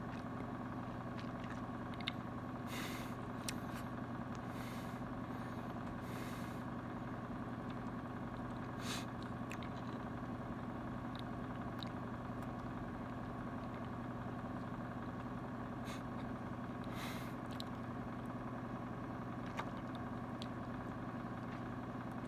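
Steady low mechanical hum, like a running motor or idling engine, with a few faint soft clicks and rustles over it.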